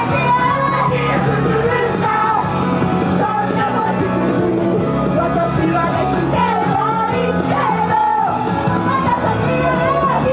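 Female voices singing into handheld microphones over a loud rock-pop backing, with yells mixed in.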